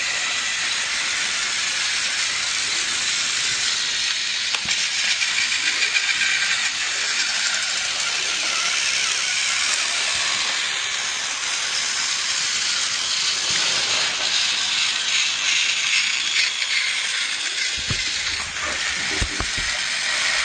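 Battery-powered toy train running on plastic track: a steady, hissing whir.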